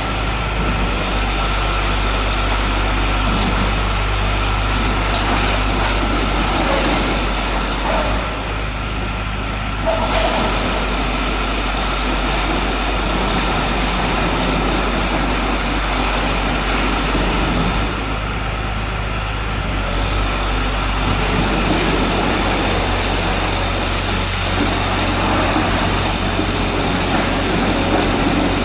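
Engine of a portable car baler running steadily, with a low hum and a thin steady whine. The higher hiss drops away briefly twice.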